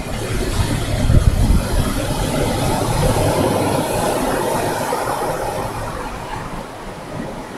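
Ocean surf: a wave breaking and washing up the beach, swelling about three to four seconds in and fading toward the end. Wind buffets the microphone with a low rumble about a second in.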